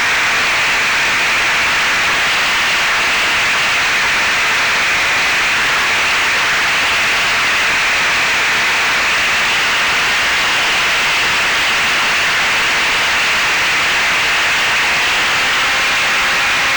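Steady rush of wind and propeller noise from an FPV fixed-wing plane in flight, heard through its onboard RunCam Split 3 camera, mostly an even hiss with a faint electric motor tone that shifts slightly near the end.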